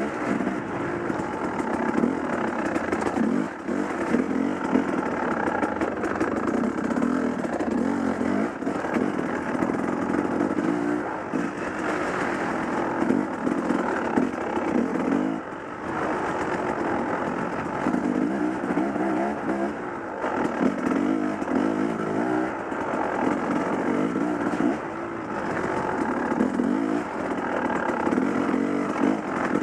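Dirt bike engine running under load on a rough trail, its revs rising and falling repeatedly, with a few brief dips as the throttle is eased.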